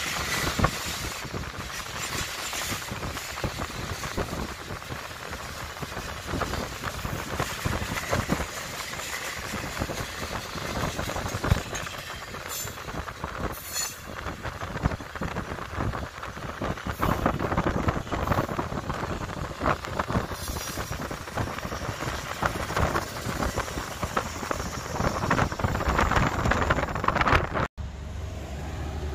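Cars of a loaded Norfolk Southern rail train rolling past, steel wheels rumbling and clattering steadily over the track. The sound cuts off suddenly near the end.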